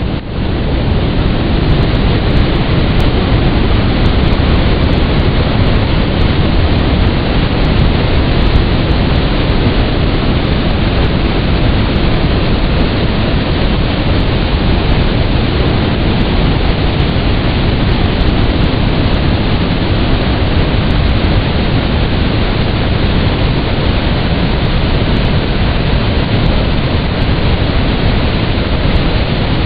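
Victoria Falls in rainy-season flood: the Zambezi pouring over the falls, a steady, loud, deep roar of falling water, heaviest in the bass. It fades in over the first second.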